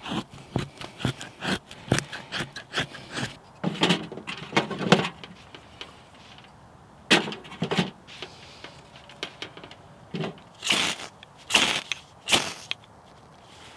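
Knife shaving curls off a stick of fatwood to make a feather stick for lighting the stove: a quick run of small clicks and taps, then about nine separate scraping strokes, each under a second, with short pauses between.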